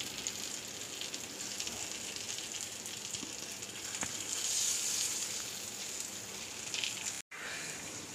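Beef burger patties sizzling on a grill pan over low heat as they are turned to cook the second side. The sizzle is a steady hiss that swells about halfway through, then cuts off abruptly near the end.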